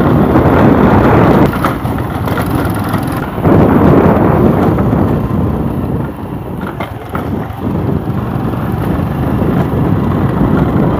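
Wind buffeting the microphone: a loud, uneven rumbling noise that rises and falls.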